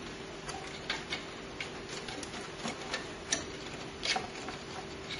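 Irregular small clicks and taps of hands handling cables and parts inside a desktop PC case, over a faint steady hum.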